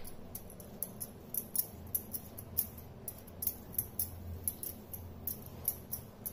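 Metal bangles clinking on a wrist in short, irregular clicks, about two or three a second, as the hand brushes paste over rolled dough. A faint low hum sits underneath.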